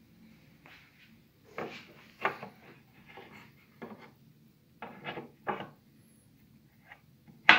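Statue parts and packaging being handled on a table: a series of short scrapes and rubs with a few light knocks, then one sharp, loud knock near the end.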